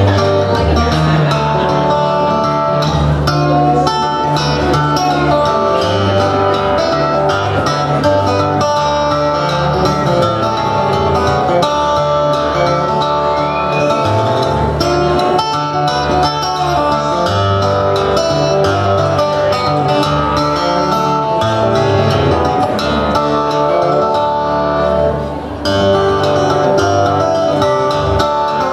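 Harp guitar played fingerstyle: an instrumental of quick picked melody notes over deep, sustained bass strings. The playing dips briefly in loudness near the end.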